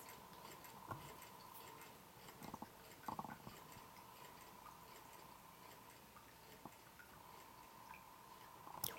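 Quarter-scale Rider-Ericsson hot-air pumping engine running slowly and very quietly, with a few soft, irregular clicks and drips of water from its pump.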